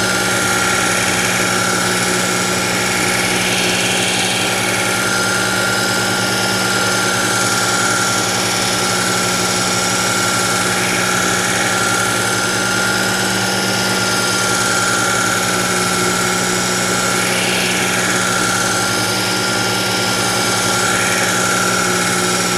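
Work Sharp electric belt knife sharpener running steadily on its X22 abrasive belt, a steady motor whine and hum, with a kitchen knife's edge drawn across the belt a few times.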